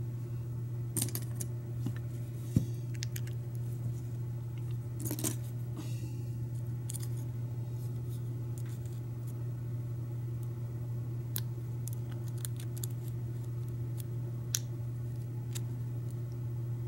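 Small metallic clicks and scrapes of a tension wrench and pick being worked in the keyway of an American 1100 pin-tumbler padlock, coming irregularly every second or few. A steady low hum runs underneath.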